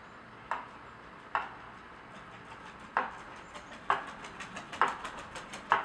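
Six sharp knocks, about one a second, with no engine running.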